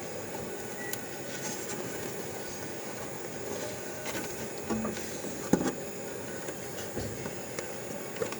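Light handling noise from work on a fire alarm panel's display board and ribbon cable: a few small clicks and rubs, the sharpest about five and a half seconds in, over a steady background hiss.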